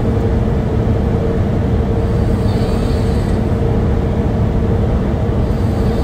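Steady road and engine noise inside a pickup truck's cab on the move: a continuous low rumble with a faint steady hum over it.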